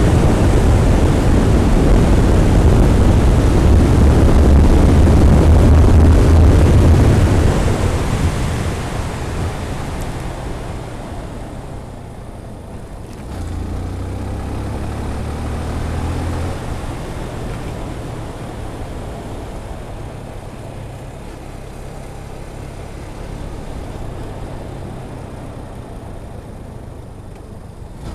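Wind rushing over a helmet-mounted Freedconn R1 microphone on a moving motorcycle: loud for the first eight seconds or so, then dying down, as deadcat mufflers fail to hold it back at speed. Under it the Yamaha FZ16's single-cylinder engine runs, with a low hum rising for a few seconds about halfway through.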